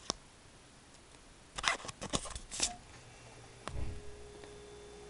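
Pokémon trading cards being shuffled in the hand, one card slid from the front of the stack to the back: a few short papery scrapes and flicks about two seconds in, then a soft bump near four seconds, after which a faint steady hum comes in.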